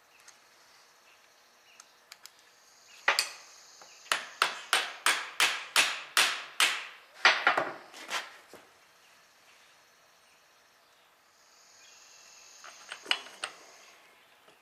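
Hammer tapping on the steel parts of a tractor power director clutch during reassembly. One sharp, ringing metal strike comes first, then a quick run of about a dozen taps, two to three a second, that fade out. A few more taps come near the end.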